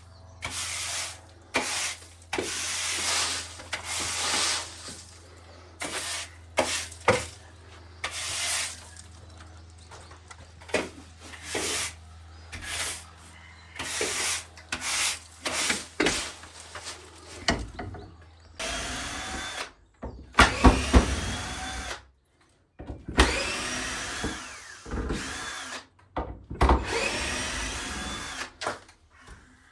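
Power drill running in many short bursts, in the later part with its motor whining up in pitch each time it spins up.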